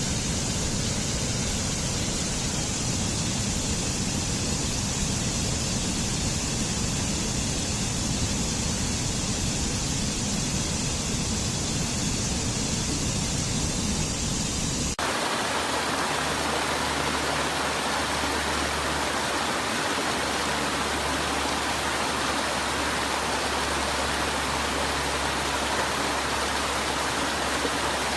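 Waterfall: a steady rush of falling water. About halfway through it switches abruptly to a brighter rush with less deep rumble.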